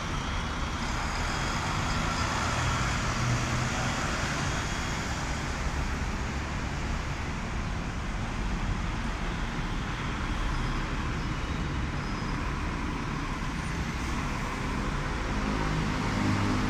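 Steady road traffic on a busy city street: a rumble of engines and tyres. Near the end a double-decker bus engine grows louder as the bus passes close by.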